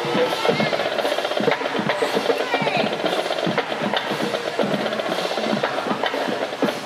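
Marching band drumline playing drums in a quick rhythm of sharp strokes, with voices of onlookers mixed in.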